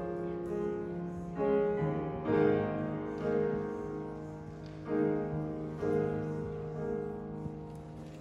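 Grand piano playing a slow introduction of held chords, a new chord struck every second or so.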